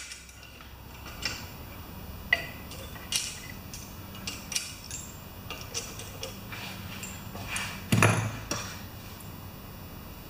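Scattered light metallic clicks and clinks of hand work on a small Briggs & Stratton lawnmower engine being stripped, with one louder knock about eight seconds in.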